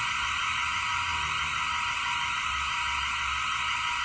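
A triggered building intruder alarm sounding continuously: a loud, steady, high-pitched blare that does not pulse or change.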